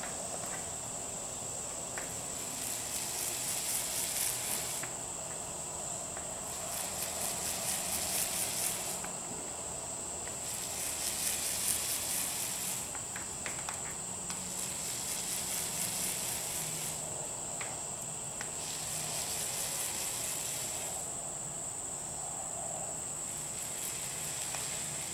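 Roller working wet DuraTex orange-peel texture coating onto a speaker cabinet: a tacky, crackling hiss in strokes about two seconds long, repeating every four seconds or so. A steady high-pitched whine runs underneath.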